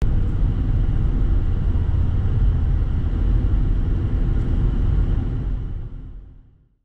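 Steady low rumble of a car driving along a city street: engine and road noise from the moving car. It fades out near the end.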